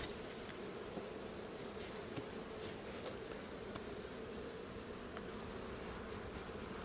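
Honeybees buzzing in a steady hum from an opened hive, with a few faint ticks.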